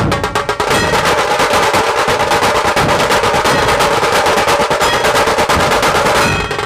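Dhol-tasha ensemble drumming: dhols and tashas beaten in a fast, unbroken roll that breaks back into separate beats near the end.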